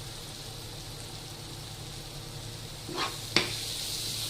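An onion-tomato masala sizzling steadily in hot oil on a tava. About three seconds in, the stirring utensil knocks twice against the pan.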